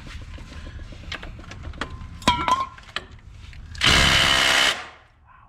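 Metal tools clinking and knocking, with one sharp clank that rings briefly. Near the end comes a loud burst of about a second from a power tool, likely an impact wrench, working at a rusted, seized track tensioner bolt on a skid steer.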